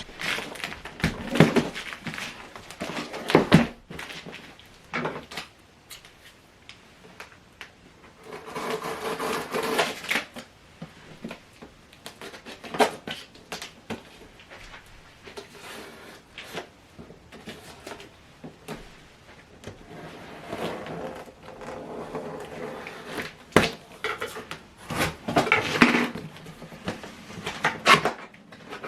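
A cardboard packing box being opened and its contents handled: scattered knocks and clicks, with stretches of rustling and scraping about a third of the way in and again in the last third.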